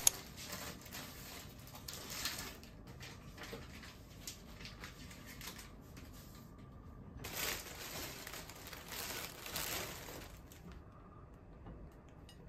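Faint rustling and crinkling of plastic food packaging, with light clicks and knocks of items being handled on a kitchen counter.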